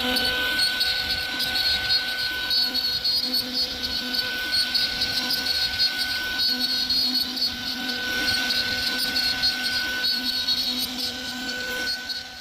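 CNC router running: a steady, high-pitched machine whine with several constant tones and a buzz.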